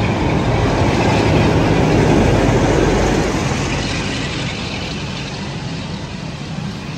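Class 47 diesel locomotive with its Sulzer twelve-cylinder engine running as it passes close by, loudest about two seconds in. Its Pullman coaches then roll past with a rumble that fades away.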